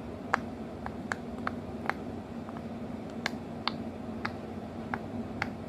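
About a dozen sharp little clicks and pops at irregular intervals, as a small plastic unicorn toy is handled and worked, over a faint steady hum.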